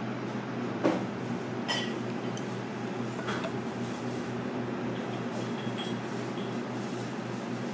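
Three light knocks and clinks on a ceramic dinner plate within the first few seconds, the second ringing briefly. They sit over a steady low hum.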